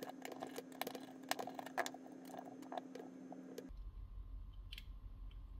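Small, light clicks and taps of plastic parts and small screws as a handheld laser distance meter is taken apart by hand. The clicks are frequent at first; after about two-thirds of the way through, the background changes abruptly and only a few faint clicks remain.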